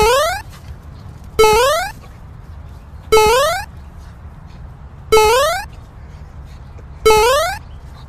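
An identical comic sound effect repeats about every two seconds, five times: a knock, then a short horn-like tone that rises in pitch, like a cartoon boing.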